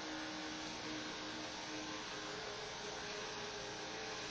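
Electric hair clippers running with a steady hum.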